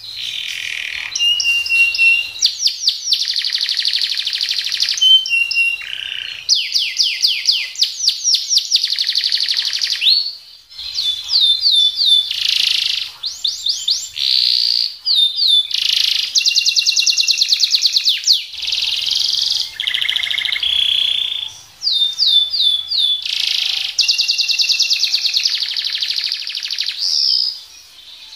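Domestic canary singing a loud, continuous song of fast rolls and rapid trills, with runs of sharp sweeping notes. The song breaks off briefly a few times.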